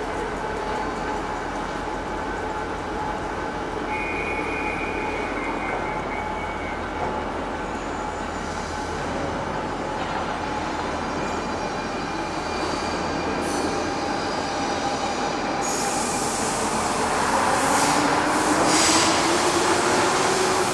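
Electric commuter train on the rails: steady running noise with a brief high wheel squeal, growing louder over the last few seconds with a rising whine.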